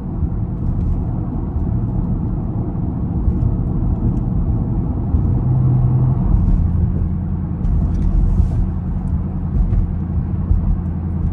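Dodge Durango SRT's V8 engine and exhaust, heard from inside the cabin while driving: a steady low rumble with road noise. The engine note shifts and deepens about six seconds in.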